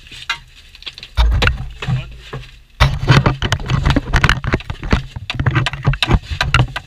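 Hand digging at a sandy tunnel face: a tool scraping and knocking into the soil with scuffs and thumps close to the microphone, starting about a second in and busiest in the second half.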